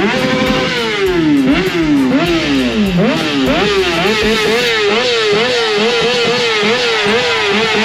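Superbike engine revved hard while standing still: repeated throttle blips, the revs jumping up sharply and falling back about twice a second, then from about halfway quicker, shallower blips that keep the revs high.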